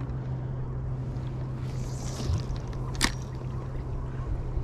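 A steady low hum over a wash of wind and water noise, with one sharp click about three seconds in.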